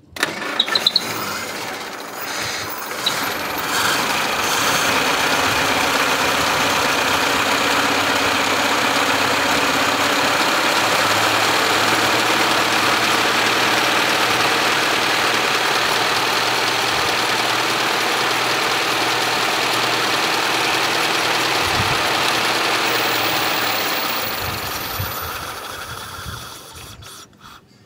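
A 1935 Austin 12/4's four-cylinder side-valve engine running steadily under the open bonnet. It comes in suddenly with a few sharp knocks in the first second and fades away near the end.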